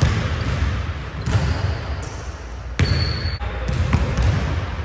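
A basketball bouncing on a hardwood gym floor, a few separate thuds over a steady low rumble, with a short high squeak about three seconds in.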